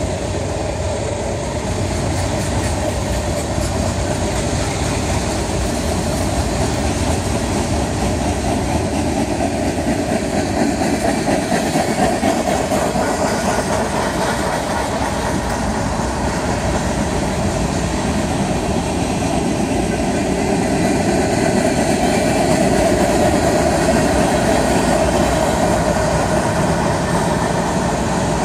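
Freight train's tank cars rolling past at speed: a steady, unbroken noise of steel wheels running on the rails.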